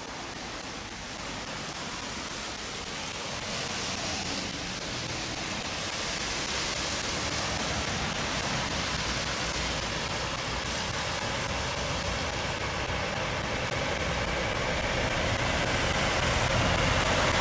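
Traffic on a rain-soaked road: a steady hiss of tyres on the wet pavement, growing gradually louder as a line of semi trucks draws near.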